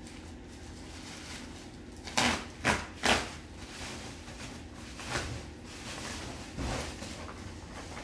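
Plastic bubble wrap crinkling and rustling as it is cut open with a utility knife and pulled away from the packed parts, with three louder crackles between about two and three seconds in.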